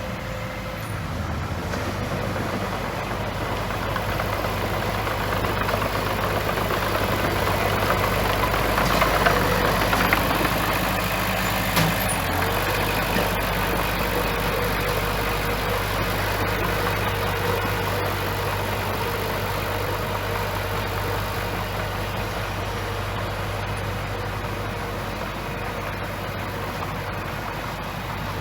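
Bulldozer's diesel engine running steadily, swelling louder for a stretch about nine to ten seconds in, with a single sharp knock a little after that.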